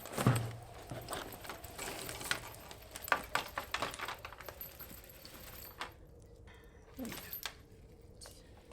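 Rummaging through a backpack: small items clinking and rattling, with a soft thump just after the start.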